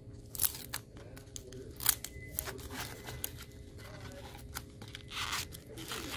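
Crackling, crunching and rustling of a frozen, tape-wrapped phone crusted in ice, handled in knit work gloves: irregular sharp crackles, with a longer rustle about five seconds in.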